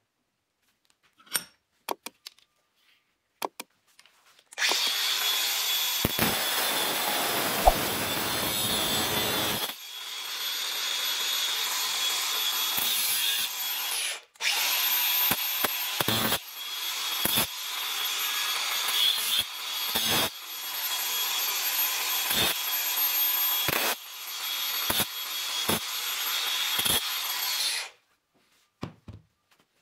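Cordless angle grinder running with a steady whine, its disc worked against steel bars clamped in a bench vise in several passes with short breaks; it starts a few seconds in and stops shortly before the end.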